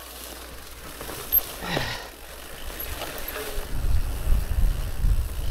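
A cow moos once, a short call falling in pitch, under two seconds in. From about four seconds in, low uneven rumbling takes over and is the loudest sound.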